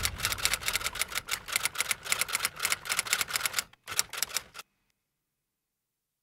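Rapid, even clicking like typewriter keys, about eight clicks a second, with a short break shortly before it cuts off abruptly about four and a half seconds in.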